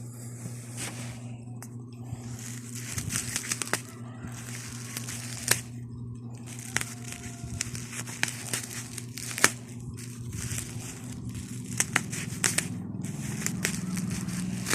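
Plastic packaging crinkling and rustling with many sharp clicks and tearing sounds as a boxed water bottle is unwrapped by hand. A steady low hum runs underneath.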